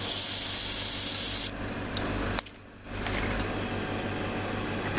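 Airbrush spraying paint in a hissing burst for about the first second and a half, over a steady low hum, with a brief quiet dip about halfway. The paint is one the painter judges still needs thinning.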